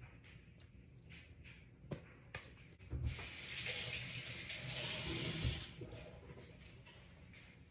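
A kitchen tap runs for about three seconds, starting about three seconds in, with a knock as it comes on and another just before it shuts off.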